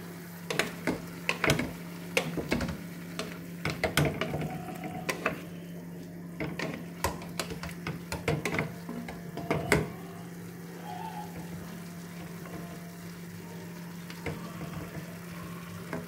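A spatula clicks and scrapes against a pan as chop suey vegetables are stirred in a little liquid, with a faint sizzle. The knocks thin out and stop about ten seconds in. A low steady hum runs underneath.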